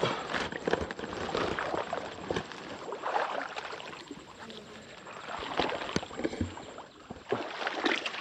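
Footsteps wading through shallow water in a flooded rice paddy: irregular splashing and sloshing, quieter in the middle.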